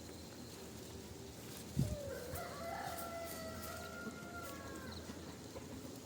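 A rooster crowing once, one drawn-out call of about two seconds that rises and then holds. Just before it comes a short low thump.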